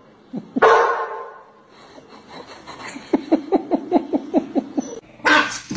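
A person laughing in a quick, even run of about ten short 'ha's. It is framed by a loud short burst about half a second in and another just before the end.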